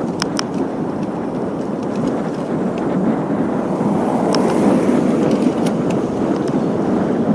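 Steady rushing of wind and road noise on a camera riding along on a road bike, growing a little louder after the middle, with a few short sharp clicks.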